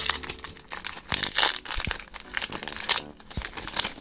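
Foil wrapper of a Pokémon card booster pack crinkling and tearing in irregular bursts as the pack is torn open and the cards are pulled out.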